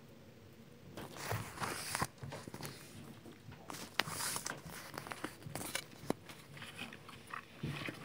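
Handling noise of a phone camera being moved about: rustles and scattered sharp taps and clicks, the sharpest about four seconds in.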